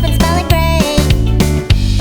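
Upbeat children's song music with a plucked-string accompaniment and a steady beat.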